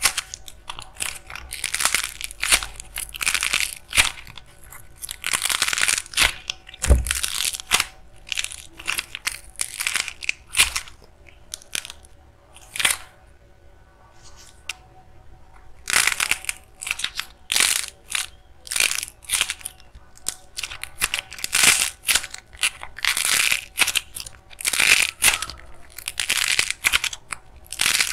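Lightweight clay squeezed and pulled apart by hand, its dried crust cracking and crunching in irregular bursts, with a quieter stretch about halfway through.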